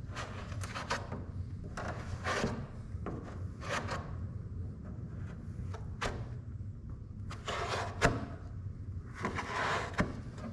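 Irregular scraping and rubbing strokes of body filler being spread onto a cracked plastic bumper with a hand spreader, with a couple of sharp clicks near the end.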